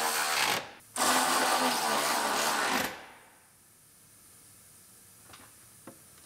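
Cordless electric ratchet on a long extension whirring as it runs down nuts, tightening them. One run stops about half a second in and a second run of about two seconds follows, trailing off as the nut seats, then a couple of faint clicks.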